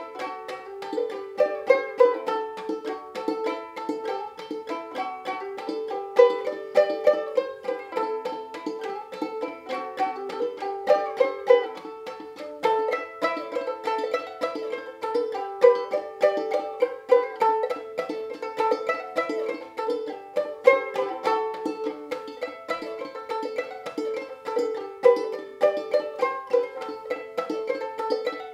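Gold Tone banjo ukulele tuned aCEA, played clawhammer-style: a steady stream of quick plucked notes of a fiddle-tune melody over a recurring drone note.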